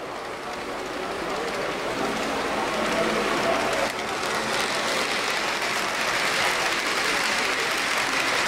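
H0-scale model freight train, a diesel locomotive hauling flat wagons loaded with model tractors, rolling past on the layout's track with a steady rattling of wheels over rails. It grows louder over the first few seconds as it nears, then holds level.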